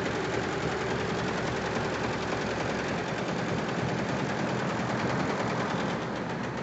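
Automatic computerised embroidery machine running, its needles stitching in a fast, steady, even chatter.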